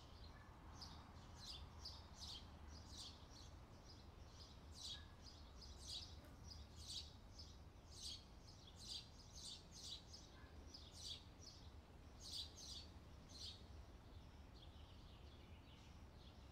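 Faint scratching of a pencil drawing short strokes on paper, about one or two strokes a second, dying away a few seconds before the end, over a low steady hum.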